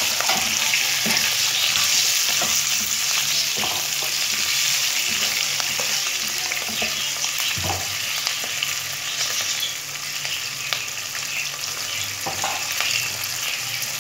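Stuffed green chillies sizzling in hot oil in a nonstick pan, a steady frying hiss, with a spatula turning them and making scattered clicks and knocks against the pan.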